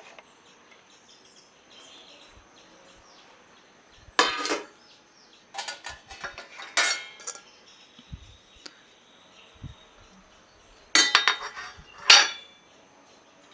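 Washed dishes and cutlery clinking and clattering as they are handled in a dishwasher rack, in several short separate bursts.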